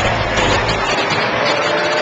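Race car engines of several cars lapping an oval speedway, heard together as a loud, steady mixed engine noise. No single pass stands out, and the deepest low end drops away about a second in.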